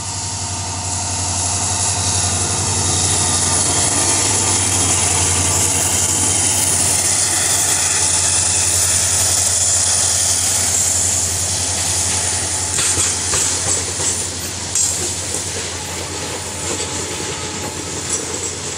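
WDG4D diesel freight locomotive running as it approaches and passes close by, its engine hum swelling to a peak. From about twelve seconds in, the BCNA covered wagons roll past with irregular clacking of wheels over rail joints.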